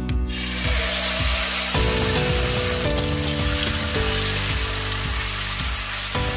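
Marinated chicken breasts sizzling as they fry in hot oil in a nonstick pan; the sizzle starts suddenly as the chicken goes into the oil, then holds steady.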